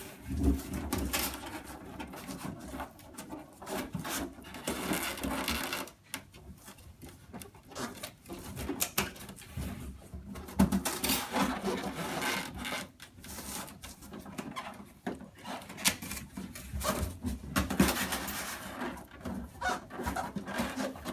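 Cardboard display stand being folded by hand: panels rubbing and scraping as shelves are folded down, pushed forward and their lock tabs pressed in, with scattered knocks and clicks.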